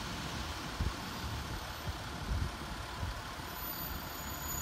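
Class 153 diesel multiple unit pulling away into the distance: a low, uneven engine rumble over a steady hiss.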